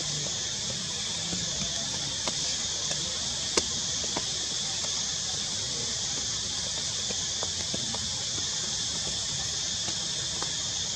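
Steady high-pitched drone of insects, even throughout, with a few faint clicks, the sharpest about three and a half seconds in.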